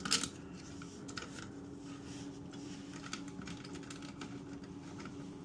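Light plastic clicks and taps as a plastic washer and nut are fitted and turned onto the threaded shank of a toilet fill valve, with one sharper click just after the start. A faint steady hum runs underneath.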